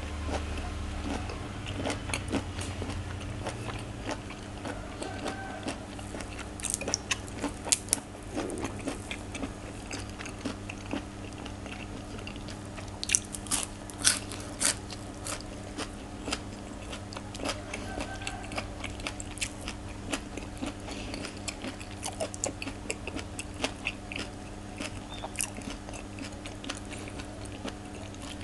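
Close-miked chewing and biting of raw shrimp and green papaya salad: wet mouth sounds with irregular crisp crunches, a cluster of louder crunches about halfway through. A steady low hum runs underneath.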